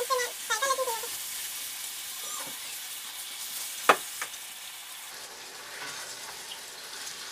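Raw beef mince frying in hot oil with fried onions in a steel pot, a steady sizzle as it is stirred with a wooden spoon. About four seconds in there is a sharp knock, the spoon striking the pot, with a smaller one just after.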